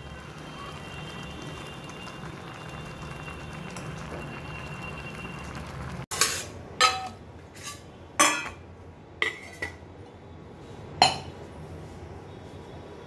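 Instant noodles simmering in a steel kadhai with a steady low hiss. Then about six sharp metallic clinks over five seconds as stainless-steel plates and utensils are set down and knocked together on the counter.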